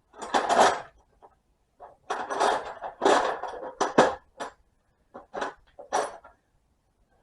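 Metal hand tools clinking and clattering in several bursts, as of a wrench or sockets being picked through and handled.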